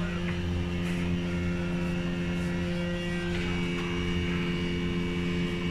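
Steady electrical hum from running workshop equipment, made of several fixed tones, with a higher faint tone joining about three and a half seconds in.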